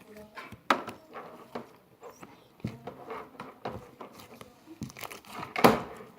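Homemade slime being squished and pulled in the hands: a run of irregular sticky clicks and crackles, the loudest about a second in and near the end.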